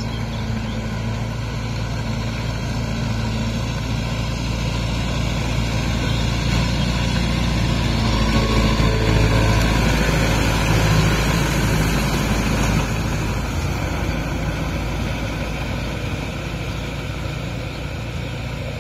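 Kubota MU5502 tractor's four-cylinder diesel engine running steadily as it drives a rotavator through flooded, muddy paddy. It grows louder as the tractor passes close about halfway through, then fades as it moves away.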